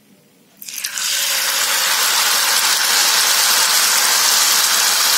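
Malpua batter sizzling in hot ghee in a frying pan: the hiss starts suddenly about half a second in as the batter is ladled in, then holds loud and steady.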